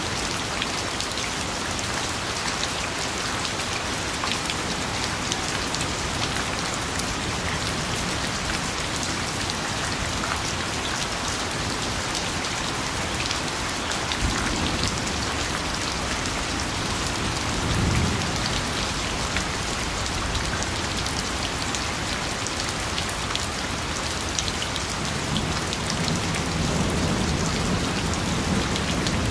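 Rain falling steadily, a dense hiss with individual drops ticking through it. Brief low rumbles swell up about halfway through and again near the end.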